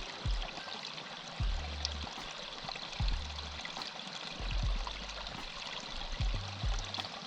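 Water running steadily with a hissing rush, like a stream, under soft background music with a slow, deep bass line.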